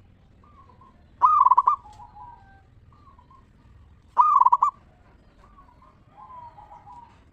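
Zebra doves (perkutut) cooing: two loud, trilling coos about three seconds apart, with fainter short coos in between.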